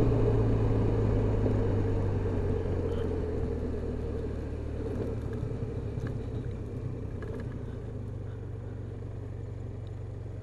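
Touring scooter's engine droning under wind and road rush, heard from the rider's seat, growing gradually quieter as the ride slows.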